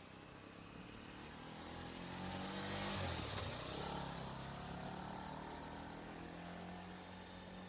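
A motor vehicle passes by: its engine hum swells to a peak about three seconds in, dips in pitch as it goes past, and fades away.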